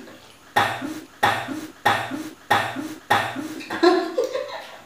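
A woman coughing in a fit: about five sharp coughs in quick, even succession, then a longer, drawn-out cough near the end.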